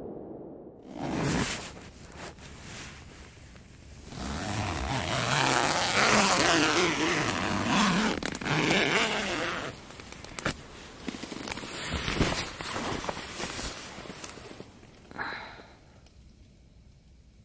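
Nylon tent fabric rustling and crinkling close to the microphone, with handling knocks and a zipper as the tent door is opened. The rustling is loudest about four to ten seconds in and fades near the end.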